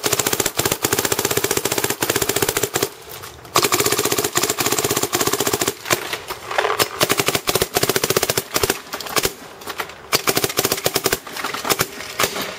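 Shocktech DM5 electro-pneumatic paintball marker firing rapid strings of shots, each string a fast, even rattle of pops lasting a second or a few seconds, with short pauses between strings, the longest about three seconds in.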